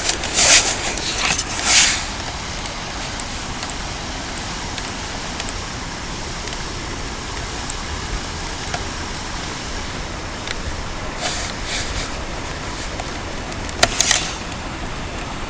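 Outdoor city traffic noise: a steady wash of passing road vehicles, with a few short, louder swells near the start and again near the end.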